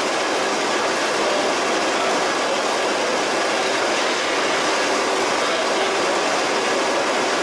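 Water rushing down a stainless steel flume and pouring off its end into a steel tank, a steady even splashing, with a faint steady machine hum underneath.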